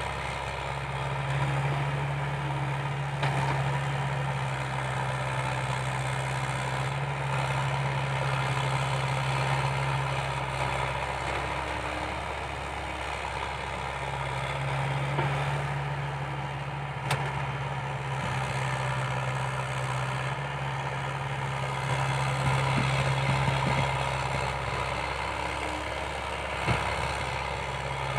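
Komatsu excavator's diesel engine running under load while digging and dumping soil into a dump truck. A strong steady engine tone holds for two long working spells and drops away for a few seconds between them, with a few sharp knocks.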